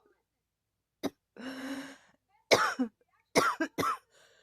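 A person coughing in fits: a short cough about a second in, a longer drawn-out sound, then three loud coughs in quick succession near the end, followed by a faint breath.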